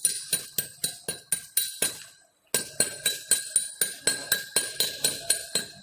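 Chipping hammer striking the slag on a freshly arc-welded butt joint to knock it off the weld bead: quick ringing metal taps, about four a second, with a short pause about two seconds in.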